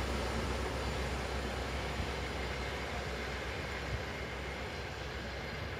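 HST test train with a Class 43 diesel power car running away along the line, its engine rumble and wheel noise on the rails fading steadily.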